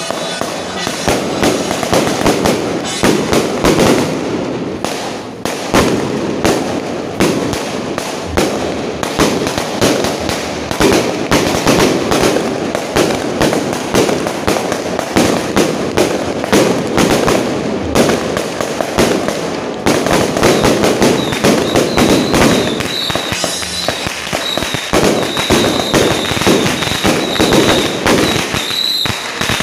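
Strings of red firecrackers going off in rapid, continuous bangs. A thin, steady high tone joins about two-thirds of the way in.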